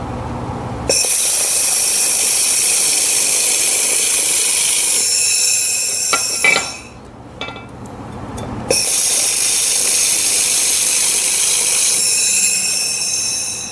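Handheld laser welder welding with a filler rod in two runs of about six and five seconds. Each run starts and stops abruptly: a loud steady hiss with a high whine. A few clicks come in the short gap between them.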